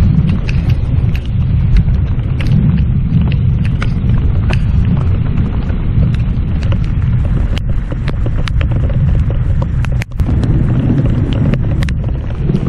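Thunderstorm rain and wind on the microphone: a loud, continuous low rumble of wind buffeting it, with raindrops ticking sharply on the camera. The rumble drops out for a moment about ten seconds in.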